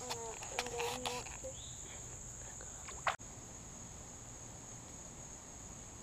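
Insects calling in a steady, high-pitched drone. A voice is heard briefly in the first second along with a few short clicks, and there is a single sharp click about three seconds in.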